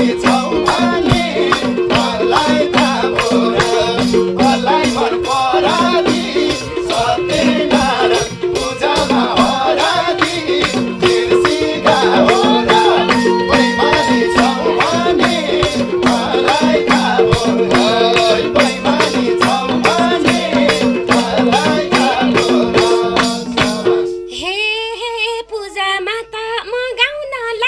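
Nepali dohori band playing an instrumental passage: harmonium chords held under a violin line and a fast, dense hand-drum (madal) beat with a rattling shaken percussion. About 24 seconds in the band stops and a woman starts singing alone, her voice sliding in pitch.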